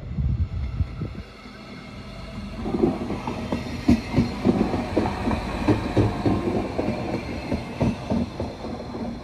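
Train passing close by, its wheels clattering over the track: a brief clatter at the start, then a dense, irregular run of loud knocks from about three seconds in.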